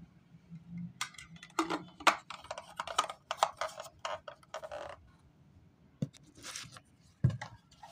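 Irregular clicking and rustling of things being handled on a work table, a quick run of it for about four seconds from about a second in, then a few more clicks near the end.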